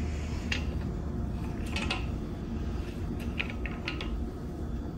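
Scattered faint clicks and light rattles from a caster wheel being twisted by hand onto its threaded stem in a metal tube leg, over a steady low background.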